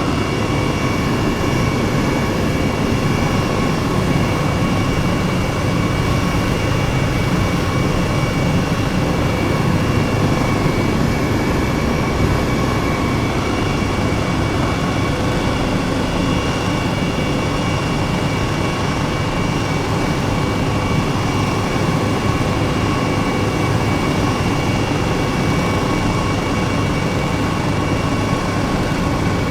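Jet engine noise running steadily and unchanging, a constant rush with several thin whining tones held through it.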